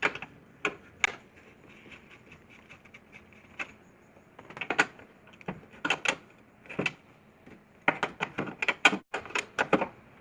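Sharp metallic clicks and clinks of a 10 mm open-end wrench working the nut on a car door check strap, at irregular intervals and busiest near the end.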